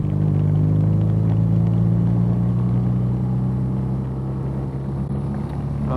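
BMW R nineT's 1170 cc air/oil-cooled boxer twin running under way at a steady speed, its engine note holding even after a slight climb in the first second or two, over a steady hiss of wind and wet road.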